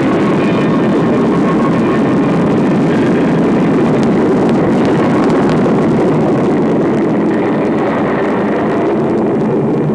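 Jet engine of a delta-wing jet aircraft running at takeoff power through its takeoff run and lift-off: a loud, steady rushing noise.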